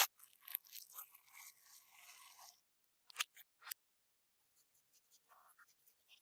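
Crunchy bead-filled slime being handled. It opens with a sharp click and crackles for a couple of seconds, then gives two more clicks a little past three seconds in, and faint crackling near the end.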